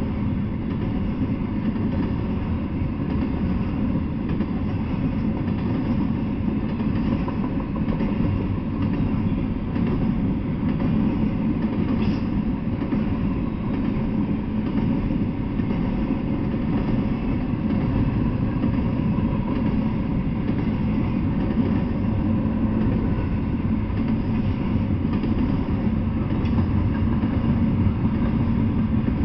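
Double-stack container freight train rolling past at a steady speed: a continuous low noise of cars and wheels on the rails.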